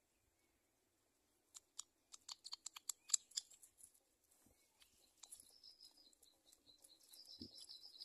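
A quick run of sharp clicks about two to three seconds in, then a fast, high-pitched chittering from black-winged kite nestlings that runs on through the end.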